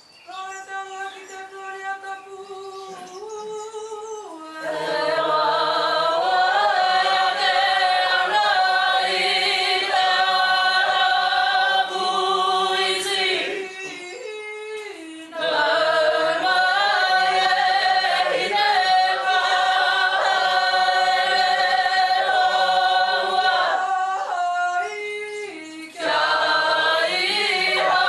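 A group of Māori performers sing a waiata unaccompanied. A single voice leads each phrase with long held notes, and the whole group of men and women joins in about five seconds in. The lead voice comes back alone twice, each time followed by the group again.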